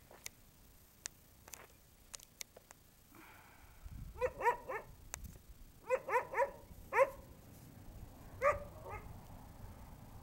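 Dogs in kennel cages barking: short, high barks in quick bursts of two or three. The barks start about four seconds in, and one of the loudest comes near the end.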